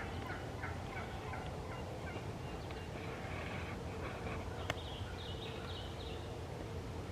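Faint, distant gobbling of an eastern wild turkey gobbler, a rapid rattling call about three seconds in, over a steady outdoor background hiss.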